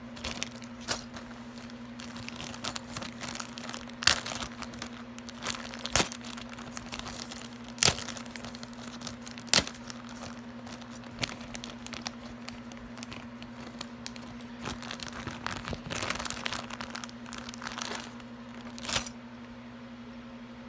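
Jewelry being handled and sorted: scattered sharp clicks and taps of small metal pieces, with rustling and crinkling, over a steady low hum.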